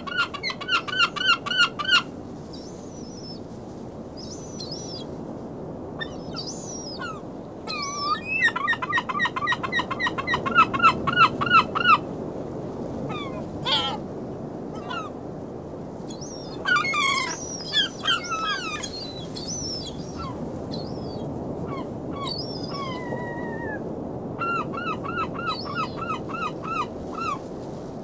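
Gulls calling: three long runs of rapid, evenly repeated calls, the loudest in the middle, with single falling calls in between, over a steady background hiss.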